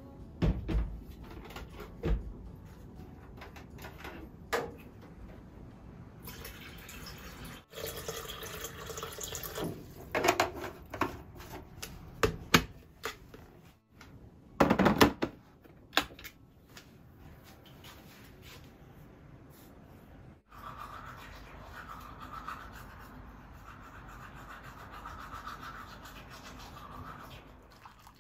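Household kitchen handling sounds: scattered knocks and clinks of objects being picked up and set down, with a louder clatter about fifteen seconds in. A steady hiss fills the last several seconds.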